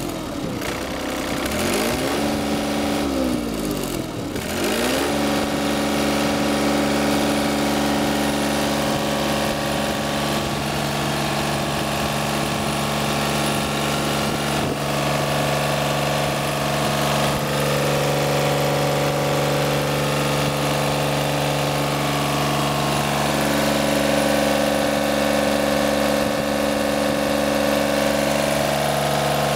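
Yanmar 3TNE82A three-cylinder diesel engine running. In the first few seconds its speed dips and climbs back about three times, then it runs steadily for the rest of the time.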